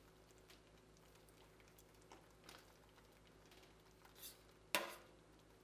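Metal spoon pressing and dabbing dye into wet yarn in a stainless steel pan: faint soft squishes and light taps, then one sharp clink of the spoon against the pan near the end.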